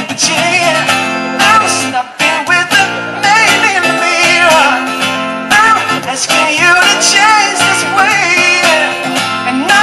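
A man singing to his own acoustic guitar, strumming steadily, in a solo live performance heard through a PA.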